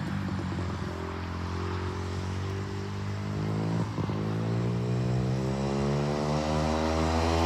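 ATV engine running under way, its pitch holding steady, dipping briefly about four seconds in, then climbing as it speeds up.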